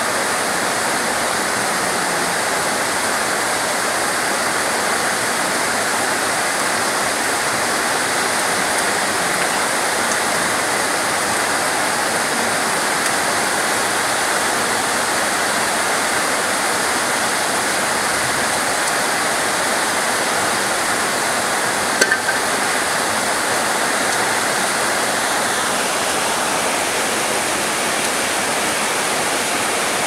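Heavy rain falling steadily in a storm, a dense, even hiss. A single brief click stands out about two-thirds of the way through.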